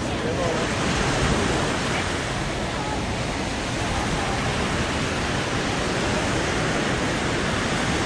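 Steady beach ambience: a continuous wash of ocean surf and wind, with scattered voices of people on the beach.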